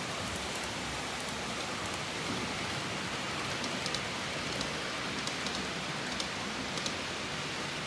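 Model trains running on a model railway layout: a steady rolling hiss of wheels on the rails, with a few light clicks in the second half.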